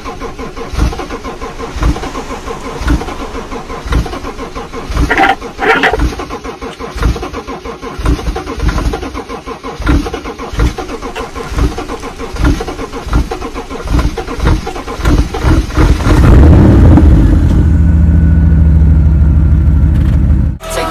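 Car engine cranking over and over on the starter, an even chugging rhythm, without catching. About sixteen seconds in it fires and runs loudly, then cuts off abruptly near the end.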